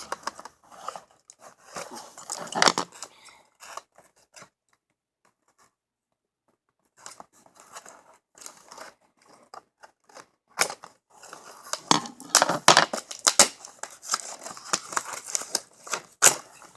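Scissors cutting into toy packaging, with rustling and tearing: a burst of cutting, a pause of a few seconds, then a longer stretch of sharp snips and crinkling.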